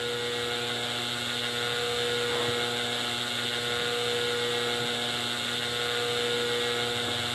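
Steady electronic hum with a buzz, held at one unchanging pitch: the drone of a broadcast emergency-alert interruption.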